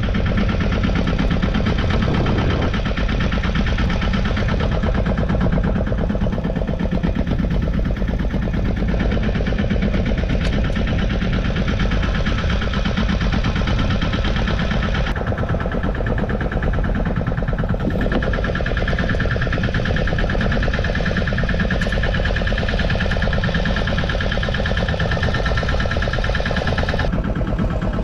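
Fishing boat's engine running steadily at a low, even pace, with a fast rhythmic chug.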